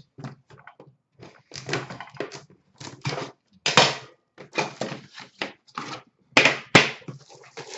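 Clear plastic shrink wrap crinkling and tearing as it is pulled off a sealed hockey card box, with irregular knocks and taps from the box being handled.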